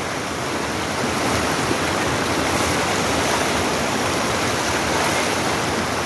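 Shallow rocky river running fast over stones and small riffles, a steady, even rush of water.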